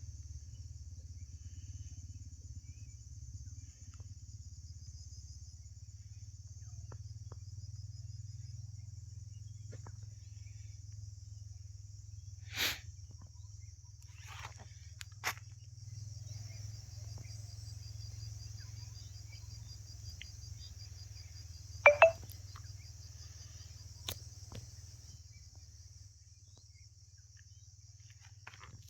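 Steady, high, finely pulsing insect chorus over a low rumble, with a few sharp clicks; the loudest is a double click about two-thirds of the way through.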